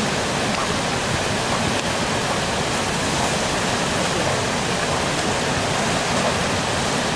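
Whitewater rapids of a fast river rushing steadily, an even noise with no breaks.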